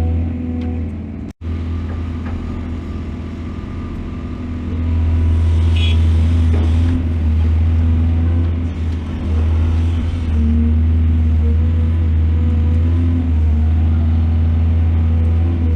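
Large diesel engine of a mining excavator running steadily with a deep drone. It cuts out for an instant just over a second in and runs louder from about five seconds in.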